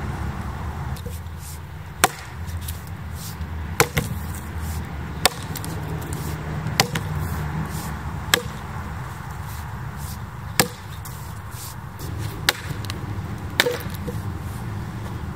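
A single axe chopping into split red oak as a board is hewn from the log: about nine sharp blows, roughly one every second and a half. A low steady rumble runs underneath.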